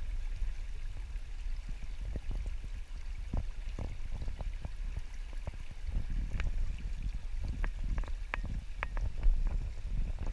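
Shallow stream running around the wader's legs and the wading rod, with a steady low rumble and scattered small clicks and knocks, more of them in the second half.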